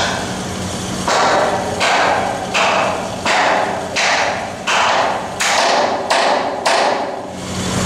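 Hammer striking steel at a pipeline joint: about nine sharp blows in an even rhythm, roughly one every 0.7 seconds, each dying away quickly, over the steady hum of an engine.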